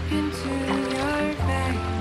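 Background music: a melody with gliding notes over steady low notes.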